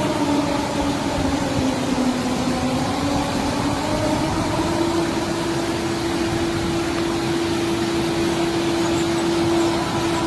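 Israeli civil-defence warning siren sounding outdoors in a single held tone. The pitch sags a little about a second in, rises back after a couple of seconds and then holds steady, over a steady hiss of street noise.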